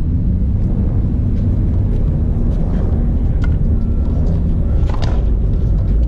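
Wind rumbling on the microphone, steady and loud, with a few faint knocks, the clearest about five seconds in.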